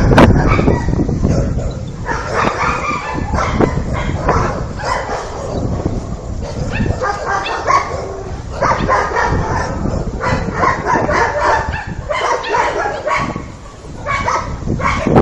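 Dogs barking repeatedly over a constant low rumble.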